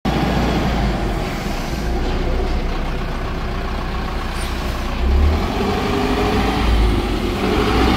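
Diesel bus engine running with a steady low rumble, swelling briefly about five seconds in.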